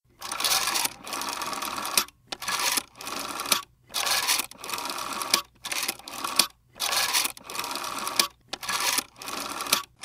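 Rotary telephone dial being turned and let spin back, digit after digit, each a whirring, clicking run about half a second to two seconds long, with short silent pauses between digits.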